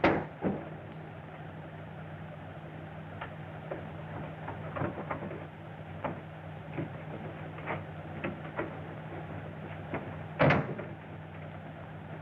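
Steady low hum and hiss with scattered faint clicks and knocks, and one louder knock about ten and a half seconds in.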